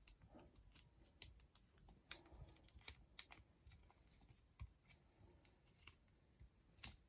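Faint, irregular small clicks and taps of a plastic action figure being handled while its vest is worked off.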